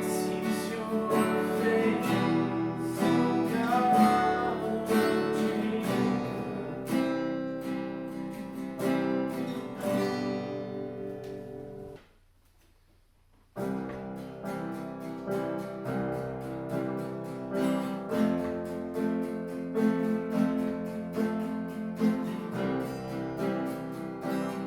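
Acoustic guitar strummed in steady chords. About halfway through, the strumming fades out into a pause of about a second and a half, then starts again.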